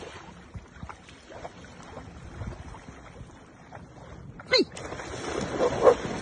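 Dogs wading in shallow sea water, with light splashing that grows louder near the end as they break into a run through the shallows. About four and a half seconds in, a brief loud call drops sharply in pitch.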